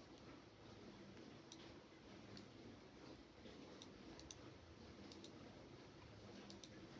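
Faint computer mouse clicks over a low room hiss: about ten sharp, scattered clicks, some in quick pairs like double-clicks.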